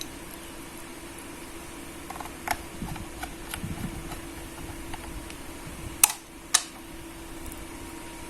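Small clicks and taps of a screwdriver, screws and plastic laptop parts being handled, with two sharp clicks about six seconds in, over a steady low hum.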